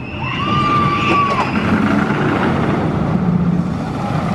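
Wooden roller coaster train with Topper Track running down its first drop, a loud steady rumble of wheels on track, with riders screaming. One scream is held for about a second near the start.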